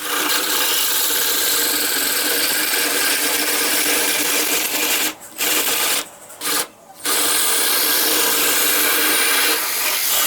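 A power tool's motor running steadily at speed, likely cutting or shaping wood, cutting out twice briefly about five and six seconds in before running on.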